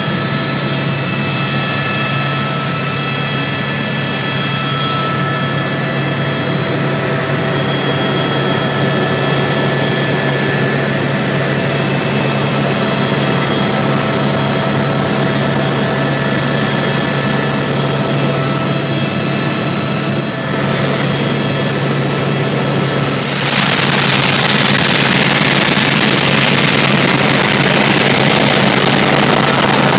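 Helicopter in flight heard from inside the cabin: a steady drone of engine and rotor with thin, high, whining tones. About three-quarters of the way through, the sound shifts to a louder, rushing hiss.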